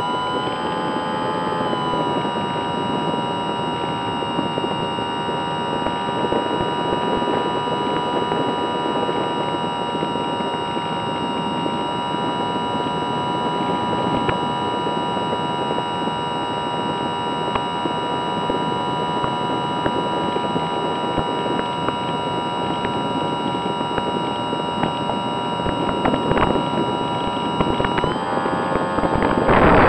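Electric motor and propeller of an Easy Star 2 RC plane, recorded on board, running with a steady whine over rushing air. The pitch rises over the first second or two, holds steady, then drops near the end, followed by a louder rush of wind.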